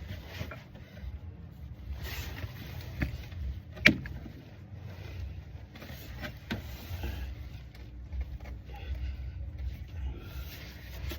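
Low rumbling background with scattered sharp clicks and knocks of hand work on the car, the loudest about four seconds in.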